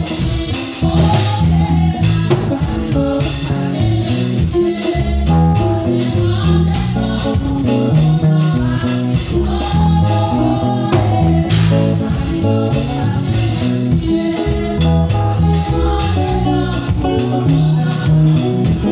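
Live band playing a kompa groove on drum kit, electric bass guitar and keyboard, the bass repeating a steady pattern of low notes.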